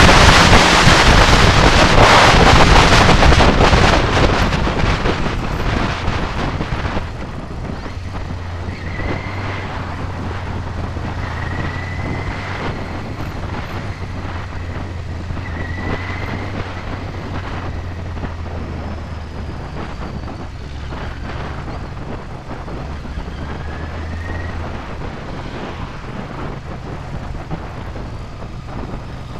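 Wind rushing loudly over the microphone of a 1999 Yamaha YZF-R6 at speed. About seven seconds in it drops off as the bike slows to a steadier cruise, leaving the inline-four engine's low steady hum beneath a softer wind rush.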